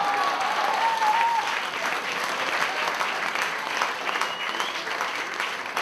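A congregation clapping and applauding steadily, with a voice calling out over the claps in the first second or so.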